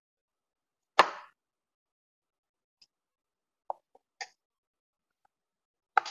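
Kitchen knife cutting through onion onto a plastic chopping board: one sharp knock about a second in, then a few short, softer cuts and taps, with another sharp one near the end.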